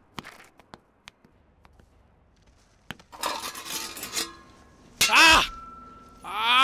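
Film fight soundtrack: a few faint clicks, then about three seconds in a burst of sound, followed by two loud cries from a person about a second and a half apart.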